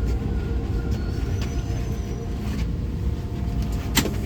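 Steady low rumble of vehicle noise, with faint high tones and one sharp click near the end.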